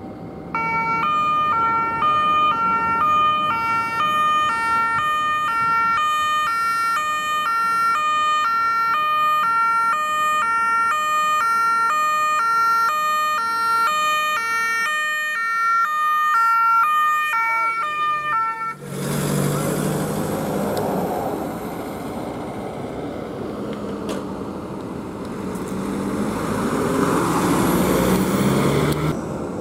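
Police van's two-tone siren, a high and a low tone alternating steadily. About two-thirds through it gives way to the loud noise of a van's engine and tyres passing close by.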